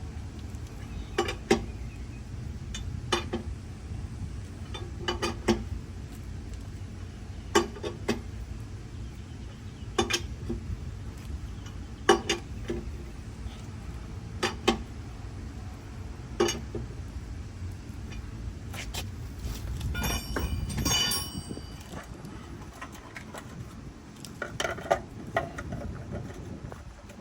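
Light metallic clinks, single or paired, every two seconds or so over a steady low rumble, with a short cluster of ringing clinks about twenty seconds in.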